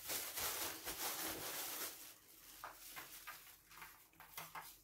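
Plastic bag rustling and crinkling as chopped fresh herbs are taken out and sprinkled onto a baking tray. The rustle is louder for about the first two seconds, then fades to faint scattered crinkles and ticks.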